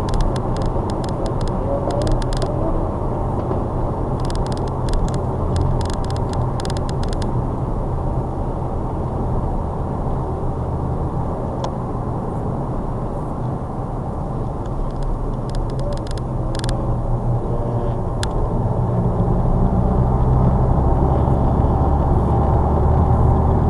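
Ford Focus ST's 2.0-litre four-cylinder turbodiesel and tyre noise, heard from inside the cabin at track speed. It is a steady low drone with scattered light clicks in the first few seconds, and it grows louder about three-quarters of the way through.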